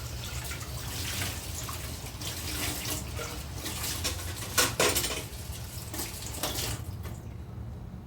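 Water running from a kitchen tap, with dishes clattering and a sharp knock about halfway through; the water stops near the end.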